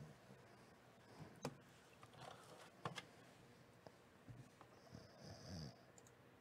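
Near silence: room tone with a few faint clicks and a short soft rustle just after five seconds.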